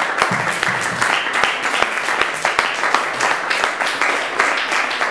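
Audience applauding steadily, dense, even clapping from many hands after a live slam poetry performance.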